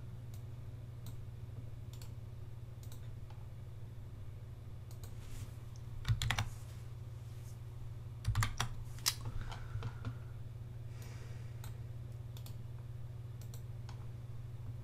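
Computer keyboard keystrokes and clicks, sparse and in short clusters with pauses between, over a steady low electrical hum.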